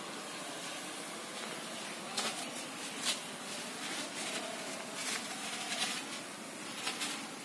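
Steady hiss, with mango leaves rustling and brushing close to the microphone several times.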